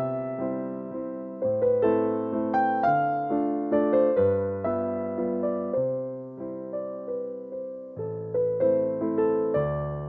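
Background piano music: a slow, gentle melody of single struck notes over low chords, each note ringing and fading before the next.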